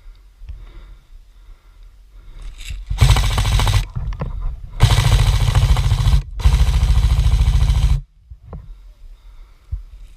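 Krytac Kriss Vector airsoft electric gun firing full-auto: a short burst about three seconds in, then two long bursts of about a second and a half each, nearly back to back.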